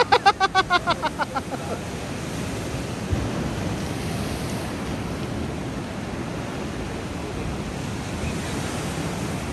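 Ocean surf washing over a rock platform, a steady wash of waves with wind buffeting the microphone. A voice sounds briefly at the start in quick rhythmic pulses.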